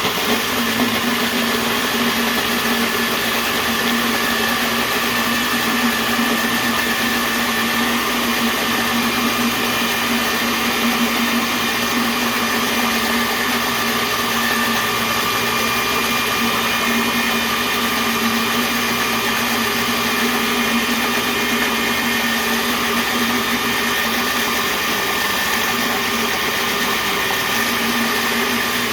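Electric blender running steadily at one speed, grinding Oreo cookies with melted butter into cheesecake crust crumbs.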